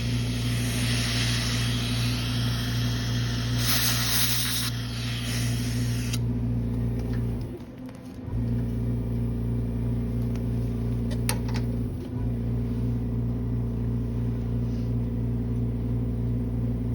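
Dental suction running: a steady motor hum with the airy hiss of air drawn through the suction tip, the hiss stopping about six seconds in. The hum dips briefly a little later, and a few light clicks follow.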